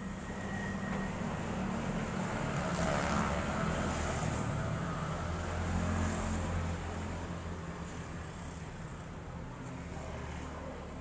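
Low engine rumble of road traffic, swelling for a few seconds and then easing, as a vehicle passes.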